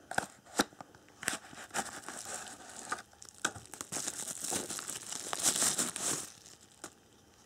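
Clear plastic wrapping crinkling as it is handled and pulled off a folding knife, loudest about four to six seconds in, after a few clicks and scrapes from the cardboard knife box being opened.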